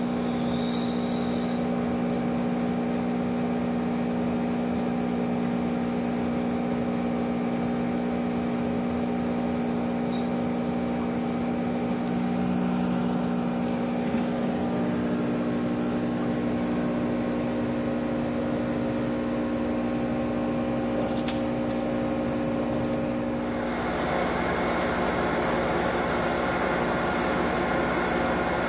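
Steady hum of aquarium equipment, a box filter and air pump, holding several steady tones. About 24 s in, the tones give way to a louder, even rushing hiss.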